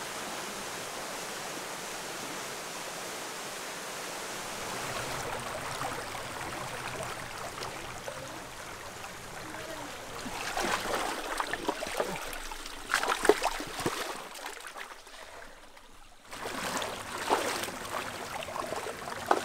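River water running over rocks, a steady rushing; about halfway through, irregular louder splashing comes in, with a brief lull a few seconds later.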